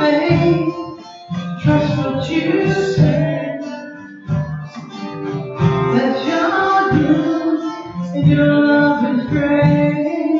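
Live music: an acoustic guitar strummed, with a singing voice and congas keeping a regular beat.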